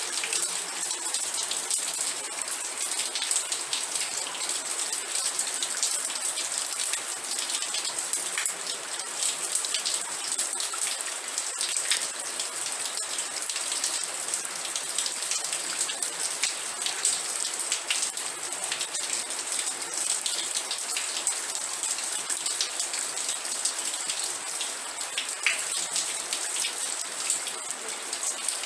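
Steady rain falling, with a dense patter of many small drop impacts and a hiss that sits high in pitch.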